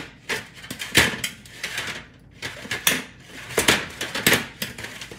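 Ice block rubbed back and forth over a metal baking sheet, making quick scraping strokes at about three a second, with a short pause about two seconds in.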